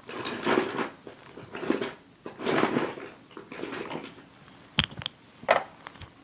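A child making breathy pretend snores, four long swells about a second apart, then a few sharp clicks near the end.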